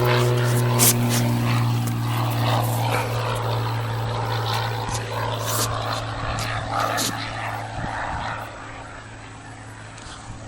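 Aircraft engine running at the airport, a steady droning hum that gradually fades and drops away about eight and a half seconds in, over a rushing background with scattered small clicks.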